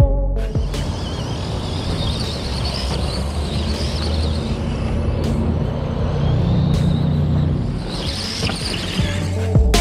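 Redcat Ground Pounder RC monster truck driving on sand: its brushed electric motor and gears whining up and down with the throttle over a steady rush of tyre and running noise.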